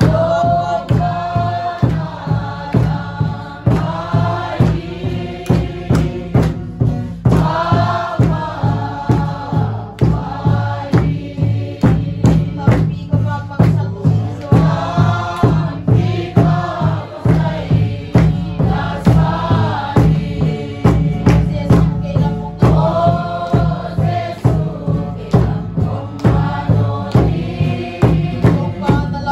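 Group of voices singing together over a steady beat.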